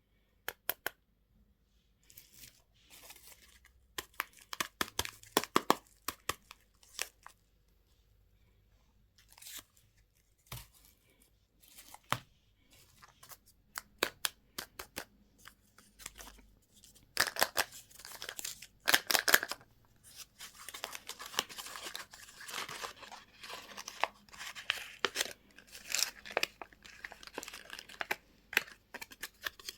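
Candy and toy packaging being torn open and crinkled by hand. Scattered sharp clicks and short crackles come first, then longer, denser tearing and crinkling through the second half.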